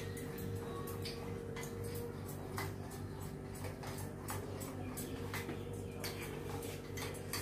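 Gram-flour batter being mixed by hand in a bowl: light, irregular clicks and taps, a few a second, over a steady low hum.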